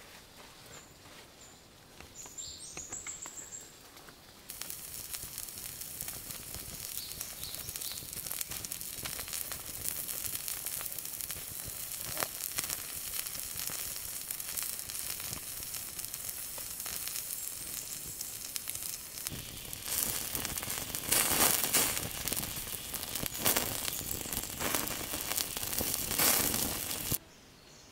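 A few bird chirps, then food starts sizzling and frying with a dense crackling hiss about four seconds in. It grows louder and more spattery in the last several seconds, then cuts off suddenly.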